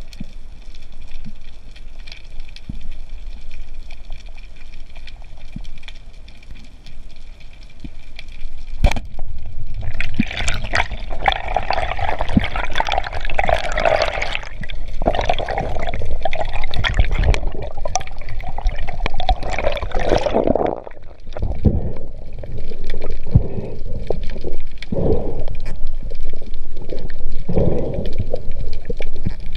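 Underwater bubbling and gurgling as air bubbles stream past an underwater camera, loud and irregular from about ten seconds in and coming in bursts later. A single sharp click sounds just before the bubbling starts.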